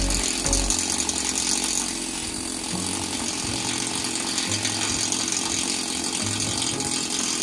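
Handheld pneumatic chipping tool rattling rapidly and steadily against the rusty corner of a steel deck junction box, knocking off rust and old paint.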